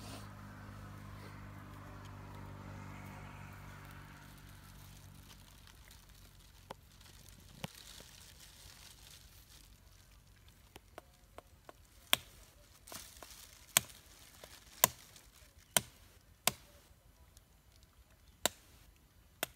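A knife chopping and cutting at a wooden stick: scattered light cuts, then a run of sharp strikes about one a second in the second half. A low steady hum fades out over the first few seconds.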